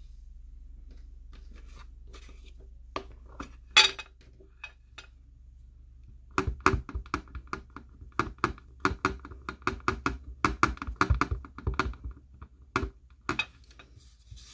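Clear acrylic stamp block tapped repeatedly onto an ink pad to ink the stamp: a quick run of light clicking taps for about six seconds, with two more taps near the end. A single sharp snap comes a few seconds before the tapping.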